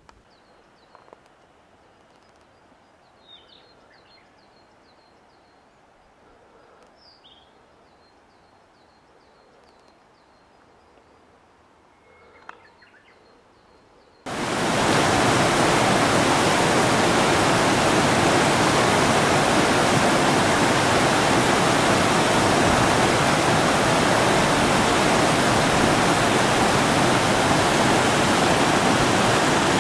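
Faint chirping in quiet open-air ambience. About halfway through, the loud, steady rush of a mountain stream cascading over rocks in a small waterfall cuts in suddenly and dominates.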